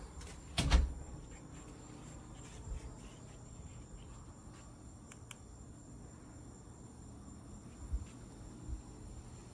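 Crickets chirping steadily in a high, unbroken trill. A loud knock sounds about a second in, and two softer thumps come near the end.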